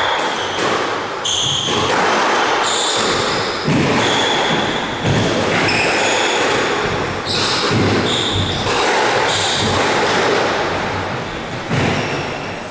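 Squash rally: the hard rubber ball cracking off rackets and the court walls again and again, with short high squeaks of the players' shoes on the wooden floor between the hits.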